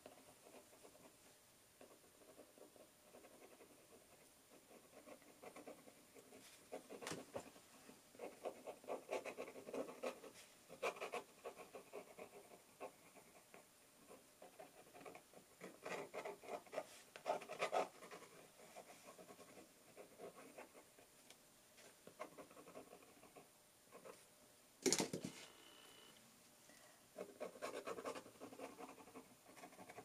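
Fountain pen nib scratching across watercolor paper in several runs of quick, short strokes, with pauses between. Near the end comes a single sharp click, the loudest sound.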